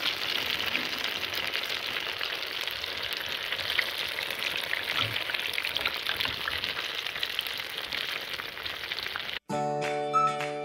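Skewered bread rolls deep-frying in hot oil: a steady sizzle with fine crackling. About a second before the end the sizzle cuts off abruptly and music begins, with a gliding melody over held tones.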